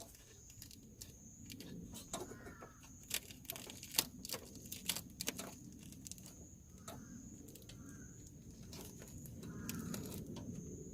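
Faint scattered clicks and taps, with a few short chirping bird calls in between and a steady high-pitched tone underneath.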